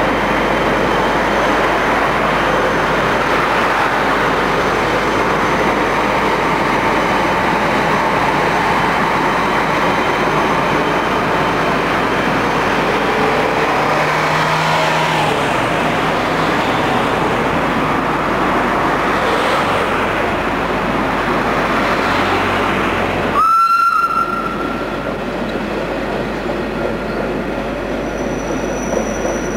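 Red metre-gauge electric train running past with steady rail and running noise, and a car goes by about halfway through. Near the end the sound cuts abruptly and a brief high squeal follows.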